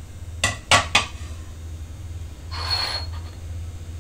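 Three quick knocks of dishware against a metal pressure cooker pot, then a short scraping rasp about two and a half seconds in, over a steady low hum.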